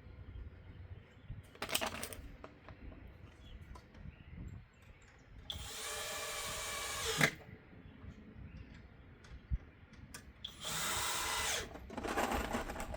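Power drill driving screws into wood, run in four bursts: a short one about two seconds in, a longer one of nearly two seconds around the middle, and two more near the end.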